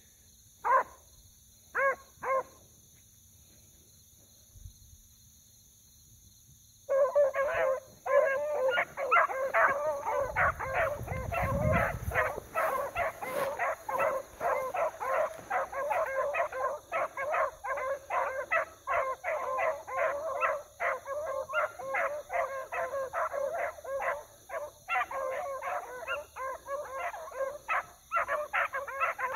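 Beagles baying while running a track: a few single bays, then after several seconds of quiet the hounds open up together in continuous, overlapping cry.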